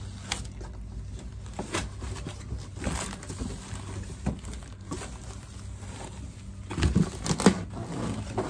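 Plastic wrapping bag around a speaker rustling and crinkling as the speaker is lifted out of its cardboard box, with scattered light knocks; the handling gets busiest and loudest about seven seconds in.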